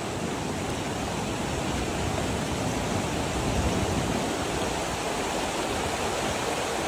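Snowmelt stream rushing over a mountain road at a water crossing: a steady noise of flowing water.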